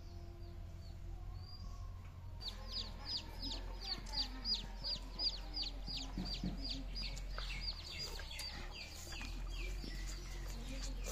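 Chickens: a chick's high, falling peeps, a few at first, then a rapid run of about four a second starting a couple of seconds in and thinning out near the end, with a hen clucking low underneath.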